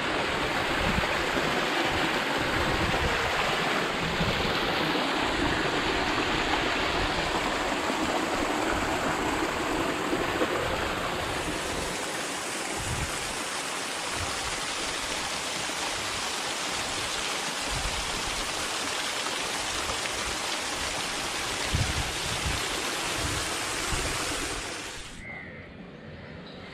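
Steady rushing of flowing water, cutting out about a second before the end.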